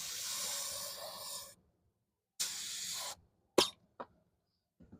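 Spray paint hissing in two bursts, the first about a second and a half long and the second shorter, as the refinished wheel is sprayed; a loud sharp click follows, then two fainter ones.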